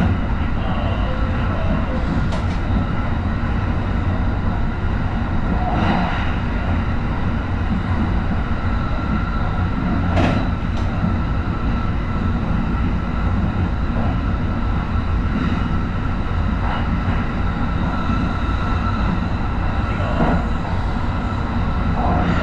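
Kintetsu 23000 series Ise-Shima Liner express train running, heard from inside the front cab: a steady low rumble with a faint steady tone over it, and occasional knocks a few seconds apart.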